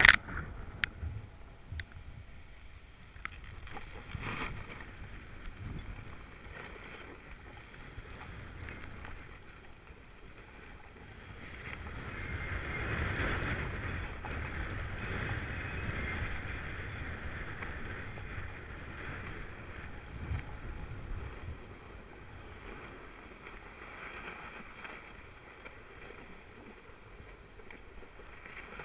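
Skis sliding over packed snow with a steady hiss and scrape, mixed with wind rushing over the microphone; it grows louder through the middle as the run speeds up. A few sharp knocks at the very start.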